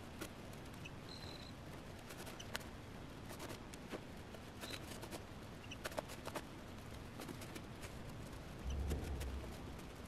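Cloth rustling and scrunching with scattered small clicks and scratches as hands bunch a skirt's waistband casing to feed elastic through on a safety pin. There is a brief low thud near the end.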